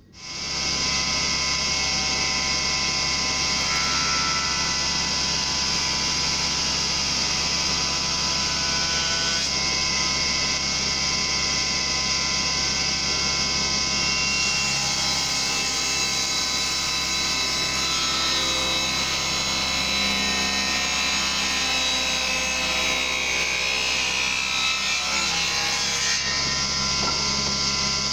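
Table saw running steadily while a curved length of tulipwood (yellow poplar) is fed along the rip fence through the blade.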